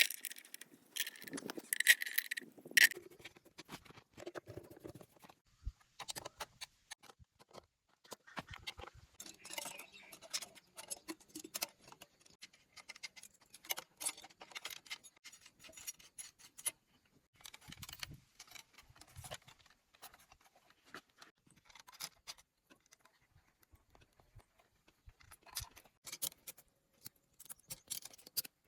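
Scattered metallic clicks, clinks and short scrapes of hand tools and small engine parts being handled during repair work, with the loudest clinks about two to three seconds in.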